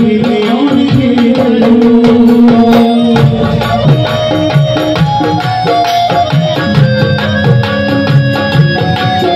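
Amplified devotional bhajan: a male singer holding long notes over a steady drum rhythm.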